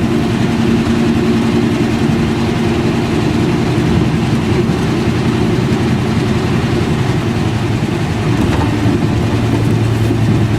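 Engine of a 1963 Chevrolet one-ton truck running as the truck drives, a steady drone that changes pitch about eight seconds in.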